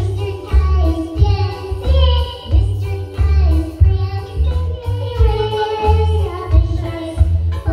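Young girl singing into a handheld microphone over backing music with a steady bass beat of about two pulses a second.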